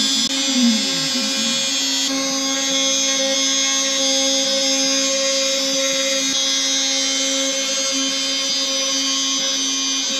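An X-Carve CNC router's spindle whining steadily as its bit cuts plywood, after a few short falling tones in the first second or so.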